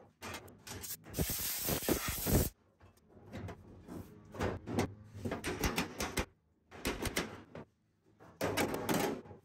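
A sheet-steel replacement inner cowl panel is slid and pushed into place against the truck cab's metal. It makes irregular metal-on-metal scraping and light rattling in several separate bursts with short pauses between them.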